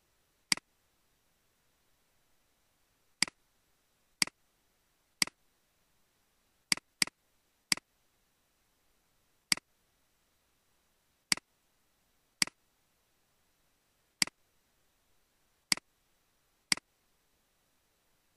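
Computer mouse clicks: about a dozen sharp single clicks at irregular intervals, a second or two apart, with two in quick succession about seven seconds in.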